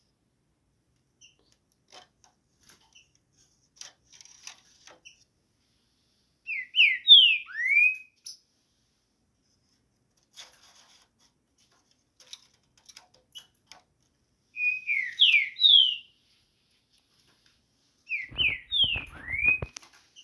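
Green-winged saltator (trinca-ferro) song: three loud whistled phrases, each of three or four quick notes sliding up and down and lasting about a second and a half, with faint clicks and taps between them. Rumbling handling noise joins the last phrase near the end.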